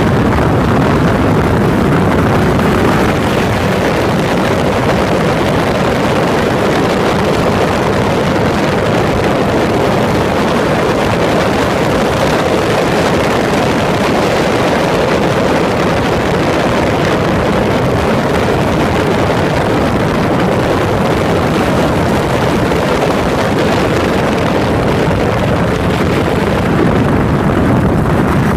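Yamaha SRX400's single-cylinder four-stroke engine running steadily under way, heard through a phone mounted beside the fuel tank, mixed with wind noise on the microphone.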